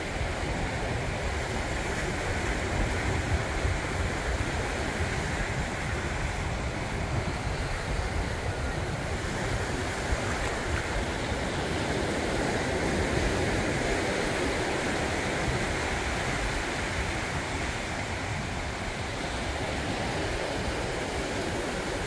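Atlantic surf washing steadily onto a flat sandy beach, with wind on the microphone.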